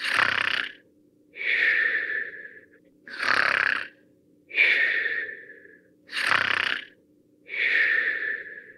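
Cartoon snoring sound effect: three slow snores about three seconds apart. Each is a rasping in-breath followed by a longer, higher, breathy out-breath that fades away.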